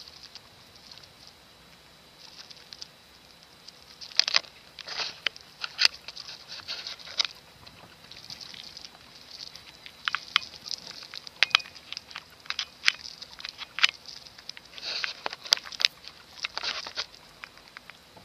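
Irregular light scratching, pattering and clicking, in short scattered bursts that grow busier after about four seconds.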